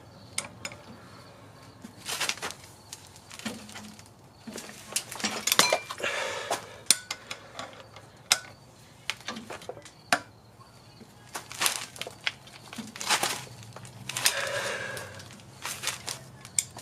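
Metal hand tools and engine parts clinking and knocking, irregular sharp clicks, with a couple of longer scraping noises in between.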